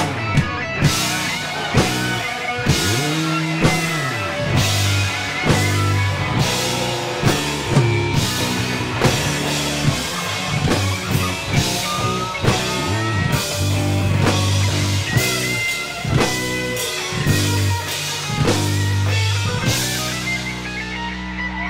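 A rock band playing live in a small room: a drum kit beating steadily over electric bass and electric guitar. The drum and cymbal hits stop near the end, leaving the bass and guitar ringing.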